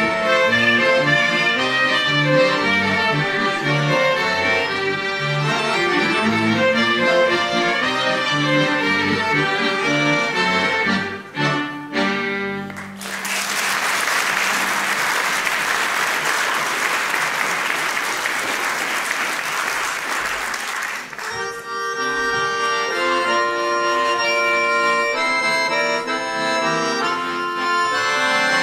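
Lemko folk band of fiddles and accordions playing the instrumental close of a song, ending about twelve seconds in. The audience applauds for about eight seconds, then accordions start the next tune.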